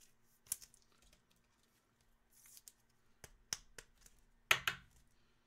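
Trading-card handling: scattered soft clicks and rustles of a card and plastic sleeves and cases, with one louder plastic clack about four and a half seconds in.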